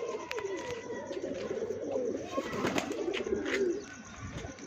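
Domestic pigeons cooing, a run of low wavering coos, with a few short sharp clicks or taps.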